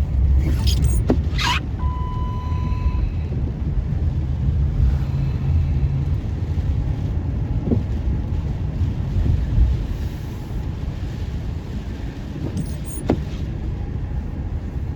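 Car being driven, a steady low rumble of engine and road noise heard from inside the cabin. A few clicks sound in the first two seconds, and a short steady beep sounds about two seconds in.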